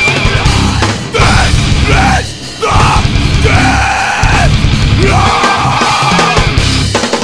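Heavy rock song with distorted electric guitars, bass and drum kit, and a shouted, yelled lead vocal in several phrases; the instruments drop back briefly about two seconds in.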